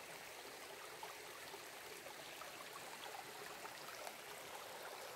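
A small woodland creek babbling steadily and faintly, water trickling over stones.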